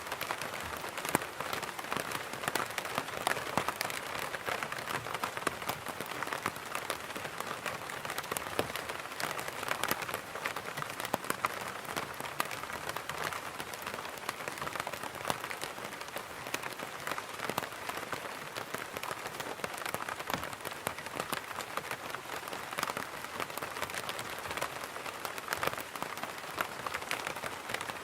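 Rain falling on an umbrella: a steady patter of many individual drops tapping the fabric, dense and irregular, without pause.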